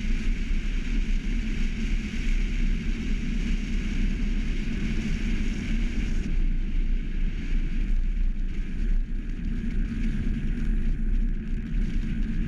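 Steady wind rush over the microphone and road rumble from a velomobile riding along asphalt. The upper hiss drops away about six seconds in.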